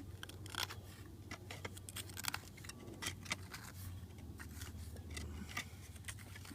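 Steel mudding knife scraping and clicking against brick as mortar is packed into a joint, a scatter of short scrapes and taps over a low steady hum.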